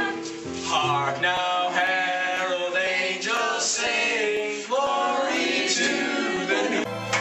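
A small group of teenage voices singing a Christmas song together, with held low notes under the voices in the first second or so.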